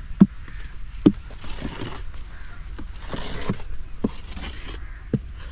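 Wooden paddle knocking and scraping in a wooden tray as thick, freshly cooked gur (jaggery) is stirred to cool, with dull knocks roughly once a second.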